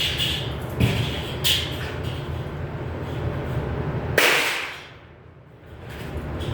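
A steady low hum with a couple of light clicks, then one sharp, loud crack about four seconds in, after which the hum drops away for about a second.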